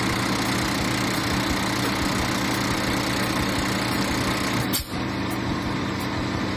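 Semi-truck diesel engine idling steadily, with a low even hum. The sound dips briefly just under five seconds in, then carries on as before.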